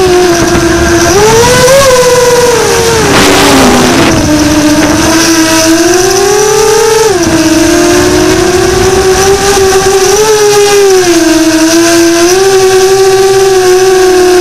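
FPV quadcopter's brushless motors whining with a steady pitch that rises and dips with each throttle change, over a rush of wind noise. A brief hiss comes about three seconds in.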